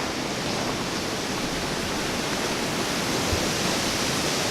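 Steady rushing of water, an even noise that grows slightly louder, with one faint knock about three seconds in.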